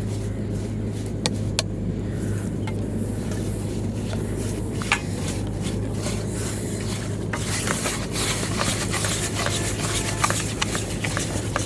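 Hand mixing and squishing wet red groundbait in a steel bowl, with scattered clicks of fingers and bangles against the metal; the wet squelching grows busier a little past halfway. Under it runs a steady low hum.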